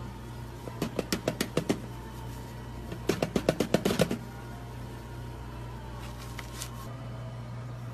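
Two quick runs of tapping, each about a second long at roughly eight taps a second, as a coated ice cream bar is pressed and turned in a tray of cookie crumbs, over a steady low hum.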